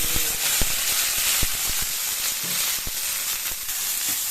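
Ingredients frying in hot cooking oil in a pan: a loud, steady sizzle with scattered crackling pops, easing a little near the end.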